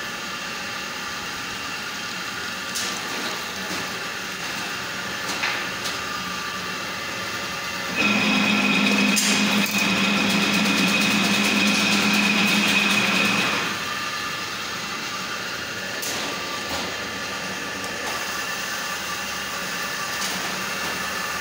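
Steady mechanical drone of a PVC wire-coating line running, with a few light knocks. For several seconds in the middle it grows louder, with a steady whine over a low hum.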